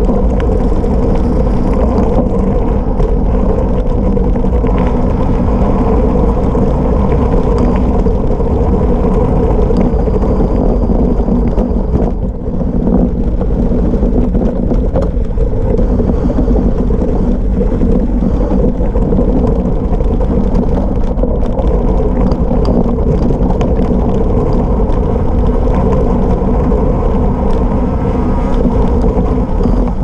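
Gravel bike descending a gravel road at speed. Its 40 mm tubeless tyres give a continuous rumble over the loose surface, and the bike rattles and knocks over the bumps, with a brief let-up about twelve seconds in.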